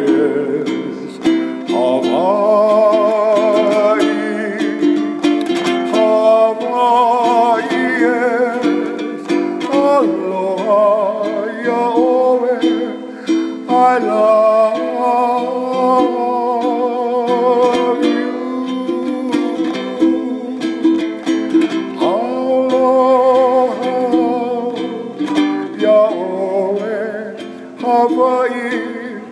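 Hawaiian music: a steady chordal accompaniment under a wavering melody with vibrato and occasional upward slides.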